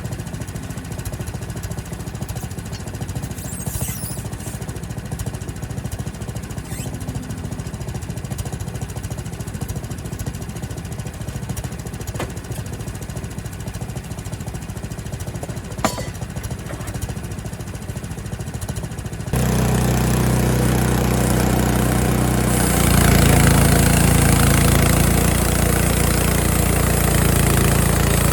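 Frontier OS23 portable band sawmill's small gasoline engine running steadily at low speed, with one sharp click past the middle. About two-thirds of the way in it is abruptly throttled up to a much louder run, and it gets louder again a few seconds later.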